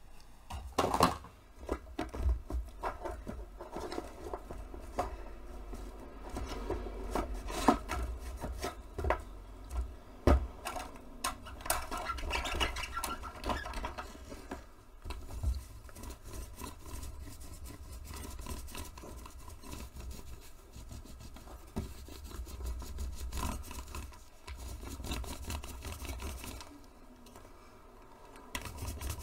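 Foam paint roller rolled back and forth through paint on a palette and over a stencil on fabric: irregular scratchy rubbing, with scattered light clicks and knocks as the roller and stencil are handled.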